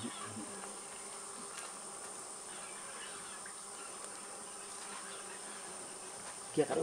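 Insects buzzing steadily, with a continuous high, thin whine over a faint low drone. A voice comes in at the very end.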